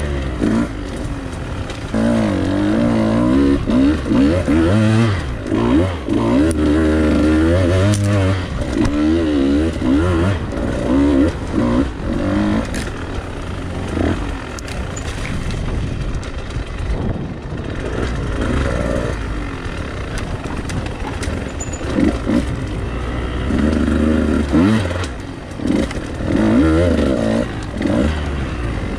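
Two-stroke Husqvarna enduro dirt bike engine being ridden off-road, revving up and down in quick surges as the throttle is worked. The revs run steadier and lower through the middle stretch before the surges pick up again.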